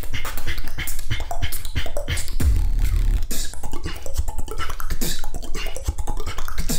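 Solo human beatboxing into a handheld microphone: a fast run of sharp clicks and snares over deep bass hits, with one held bass note a little over two seconds in.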